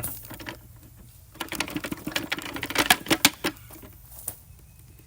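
Plastic dust bin of a Shark Rotator upright vacuum being opened and emptied: a knock, then a quick run of clicks, knocks and rattles for about two seconds, with a single click near the end.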